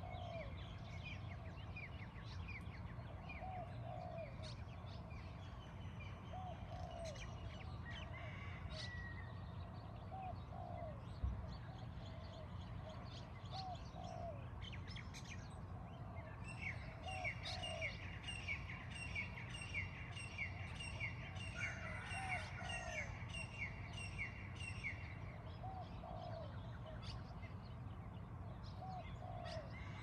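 Dawn chorus of Hawaiian birds: many high chirps, with a low cooing call from a dove repeating every couple of seconds. From about seventeen seconds in, a bird gives a fast run of high chirps for several seconds, and a single short thump comes about eleven seconds in.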